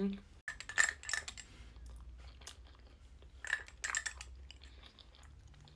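Metal knife clinking and scraping against a small glass jam jar, in two short clusters of clicks, about a second in and again around three and a half seconds in.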